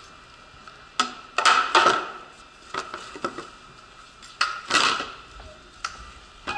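Portable wheelchair boarding plate being handled and set down at a train's doorway: metal clanks and clatters, a burst about a second in and another about four and a half seconds in, with lighter knocks between.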